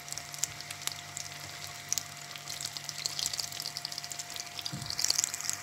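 Samosas deep-frying in hot oil in an aluminium pot: a steady sizzle with many small crackles and pops, over a faint steady hum.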